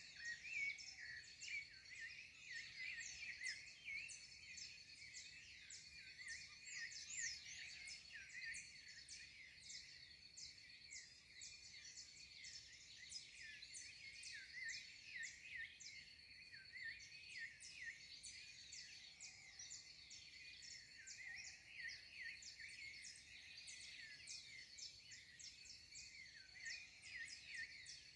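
Dawn chorus of many small birds, rapid overlapping chirps and trills all at once, faint and continuous. A steady high-pitched thin tone runs underneath.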